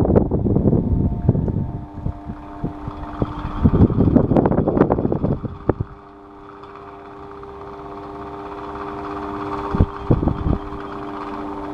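Electric fan running with a steady motor hum. Loud gusty rumbling comes through in the first two seconds and again from about four to six seconds in, and a few knocks sound near the end.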